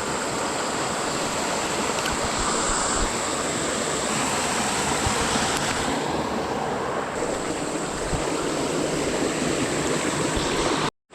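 Steady rush of flowing creek water, a continuous even noise that cuts off abruptly near the end.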